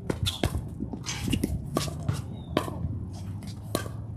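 Pickleball rally: paddles striking the hollow plastic ball, sharp pops roughly a second apart, with fainter shoe scuffs on the hard court between hits.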